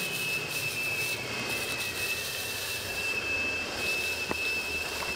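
Shop vacuum running with a steady high whine and rushing air as its hose sucks up rotted wood debris from old roof framing.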